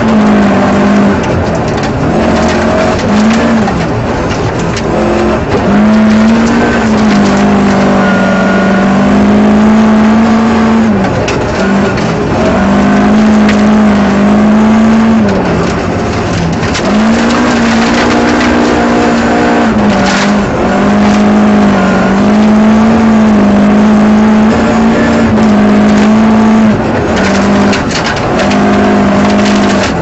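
Rear-wheel-drive rally car's engine heard from inside the cabin, held at high revs at full throttle, its note dropping briefly several times as the driver lifts or changes gear and then climbing again. Gravel and stones rattle against the underside throughout.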